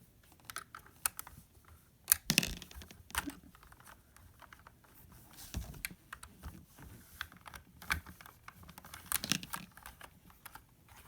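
LEGO puzzle box being handled: plastic bricks clicking and clattering as parts are twisted and shifted. The clicks come irregularly, with louder clusters about two seconds in and again around nine seconds.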